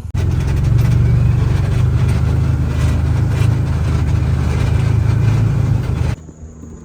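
An engine running steadily and loud at close range, then cutting off abruptly about six seconds in.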